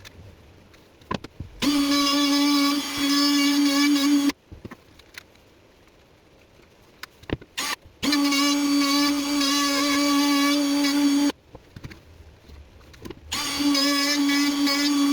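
Small high-speed handheld power tool running in three bursts of a few seconds each, a steady high whine that holds one pitch, working a recess in a wood slice deeper. Faint taps and knocks come between the bursts.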